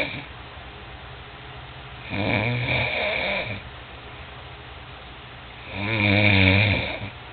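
A sleeper snoring loudly: two long rasping snores, one about two seconds in and a louder one about six seconds in, with quiet breathing between them.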